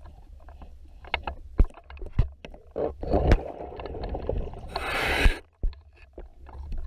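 Underwater sound during a hull dive: a steady low rumble with scattered sharp knocks and clicks of hands and gear against the boat's running gear, and one burst of diver's regulator breathing hiss and bubbles about five seconds in.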